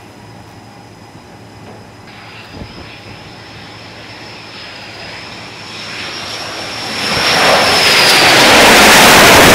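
F/A-18 Hornet jet approaching, its high engine whine growing for several seconds and swelling into a very loud jet roar over the last two or three seconds as it comes close.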